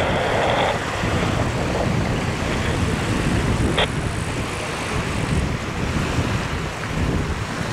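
Wind buffeting the microphone: a steady, rumbling rush of noise, with one brief sharp blip about halfway through.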